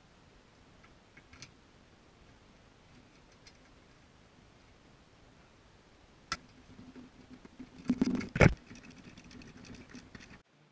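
Metal hand tools and suspension hardware being handled while a stabilizer-link bolt is started on the lower control arm: a few faint clicks at first, then about six seconds in a sharp metallic knock, followed by irregular clinks and clatter that are loudest around eight seconds in. The sound cuts off suddenly near the end.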